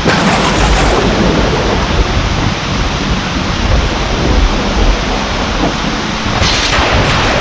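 Heavy rain falling steadily, with thunder rumbling low. The thunder breaks in suddenly at the start, with a sharp crack, and rolls on through the rain. A second crackling peal comes near the end.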